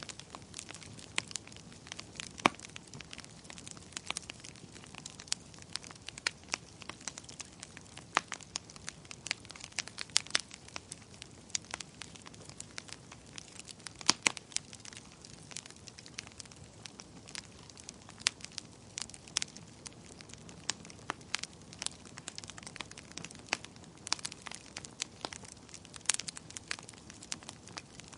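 Wood fire crackling: sharp irregular pops and snaps, several a second, over a soft steady hiss.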